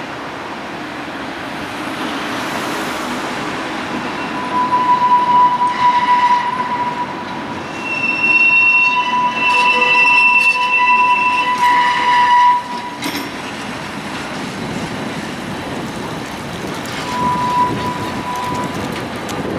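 Vintage Geneva tram, motor car Be 4/4 67 with trailer Bi 363, rolling slowly through a very tight curve, its steel wheels squealing on the rails as they grind round the sharp bend. The high steady squeal starts about four seconds in and cuts off sharply around twelve seconds. It returns briefly near the end over the rumble of the cars.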